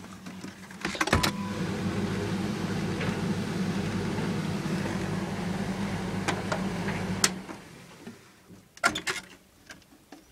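Zanussi tumble dryer's motor and drum start with a click about a second in, run with a steady hum for about six seconds, then stop with a click as the program knob is turned off. A couple of sharp latch clicks come near the end as the door is opened.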